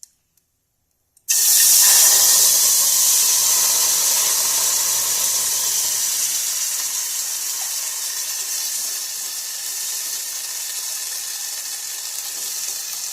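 Wet ground-turmeric paste dropped into hot mustard oil, sizzling loudly: a sudden hiss that starts about a second in and slowly eases off.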